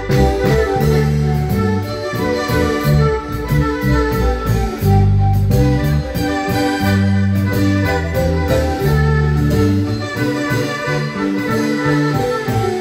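Live dance music from a marimba band: held melody notes over a steadily stepping bass line, playing without a break.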